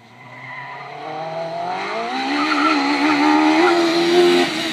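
Small racing car's engine at full throttle on a hill climb, growing louder as it approaches, its pitch climbing with the revs, then dropping near the end as it passes.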